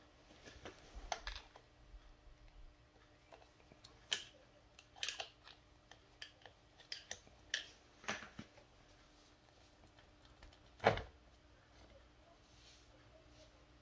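Scattered light metallic clicks and clinks of a Honda GL1200 Goldwing clutch pack being pried with a screwdriver and its clutch plates worked off the hub by hand, with one louder knock about eleven seconds in.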